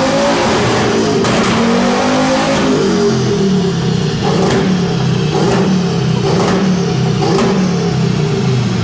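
Turbocharged 2.3-litre VR5 engine in a Volkswagen up, run hard on a chassis dyno through the gears: the engine note climbs and falls back again and again, with a short sharp crack at each quick gear change, roughly once a second.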